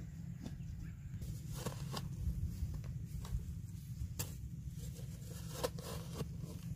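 Wooden-handled spade chopping and scraping into dry, crumbly soil while digging a pit, in irregular strokes about a second apart.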